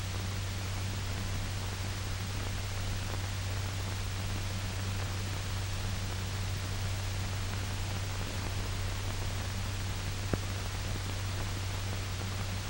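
Steady hiss with a low hum underneath: the background noise of an old film soundtrack, with one faint click about ten seconds in.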